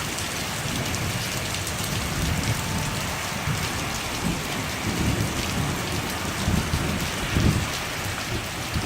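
Heavy rain coming down in buckets, a steady hiss of downpour. A low rumble of thunder swells in from about two seconds in and peaks near the end.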